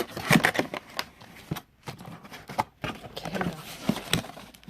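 Cardboard box and paper packaging being handled: an irregular run of rustles, scrapes and light knocks.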